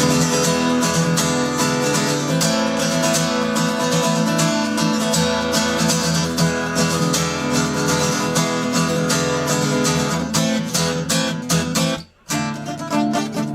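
Acoustic guitar strummed steadily, with a short break about twelve seconds in, recorded through the Lumix FZ1000 camera's built-in microphone, which also picks up noise from the camera itself.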